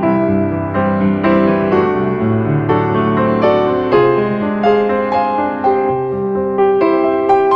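Background piano music, a melody of separate notes that each strike and fade.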